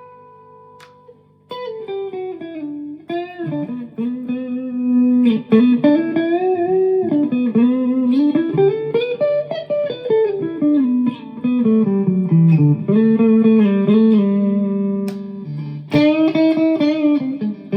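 Chapman ML1 Modern Standard electric guitar playing through an amp. A held note rings and fades, then a melodic lead line follows, its notes bent up and down with vibrato. A strongly picked note rings out about sixteen seconds in.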